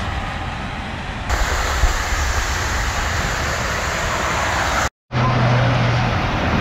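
Freeway traffic running on rain-soaked lanes: a steady wash of tyre and spray noise from passing cars. The sound cuts out for a split second about five seconds in and comes back with a low steady hum for about a second.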